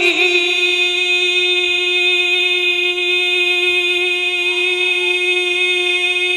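A man singing a naat with no accompaniment, holding one long steady note.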